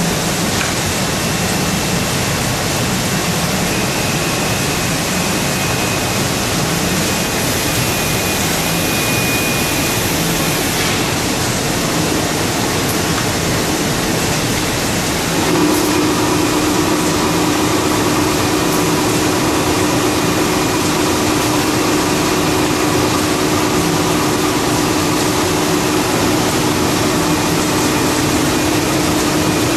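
Wohlenberg 137 paper cutting line running: a steady, even machine noise with no distinct knife strokes, joined by a steady hum about halfway through.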